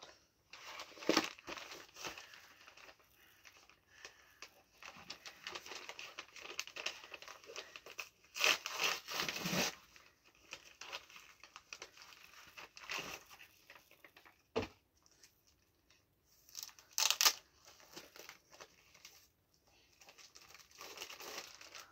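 Packaging crinkling, rustling and tearing in irregular bursts as comic books are unpacked by hand, loudest about nine seconds in and again about seventeen seconds in, with a single sharp knock about fourteen and a half seconds in.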